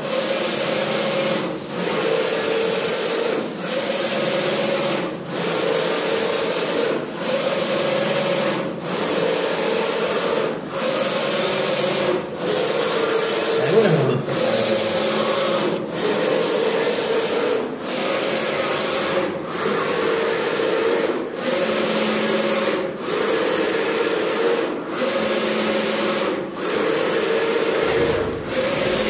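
Flat-bed textile screen printing machine running its squeegee carriage back and forth across the screen: a steady mechanical rubbing and motor noise broken by a short pause about every two seconds at each stroke.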